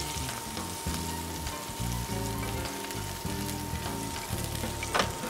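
Hot oil sizzling steadily in a frying pan under crab fish cakes, with one sharp click near the end.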